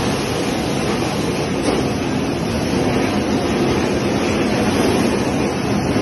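Stainless-steel bubble-type fruit washing machine running with pineapples in its tank: a steady rush of churning, bubbling water mixed with the hum of its conveyor machinery.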